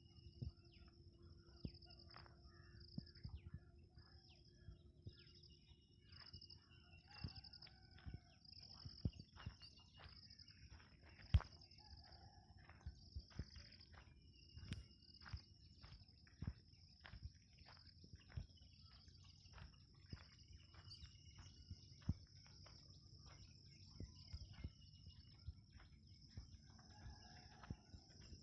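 Faint outdoor dawn ambience: insects chirring in a steady, pulsing high band, with scattered bird calls and frequent small sharp clicks.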